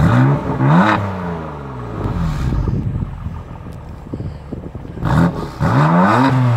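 BMW M4's twin-turbo inline-six revved at a standstill, heard at the quad exhaust tips. A sharp rev at the start climbs and falls away over about two seconds, then comes a small blip, and a second big rev about five seconds in.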